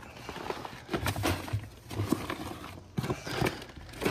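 Plastic tackle boxes being handled and set down, giving a series of irregular knocks and clunks.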